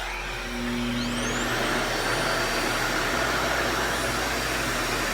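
RevAir reverse-air hair dryer running, a steady rush of suction air whose high motor whine rises in pitch about a second in and then holds steady as the unit speeds up.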